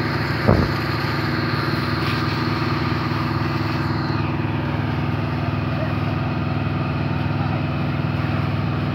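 Steady drone of an engine running at constant speed, with a brief louder sound about half a second in.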